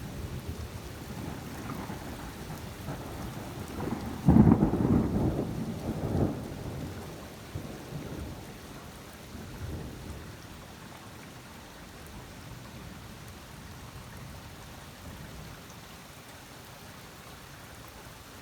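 A thunderstorm: steady rain with a sudden loud clap of thunder about four seconds in, rumbling on for a couple of seconds. The rain then grows quieter.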